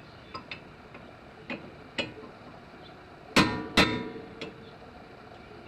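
Metal tool work on car suspension: a few light clicks and taps, then two loud ringing metal clanks in quick succession a little past the middle, and one more click after.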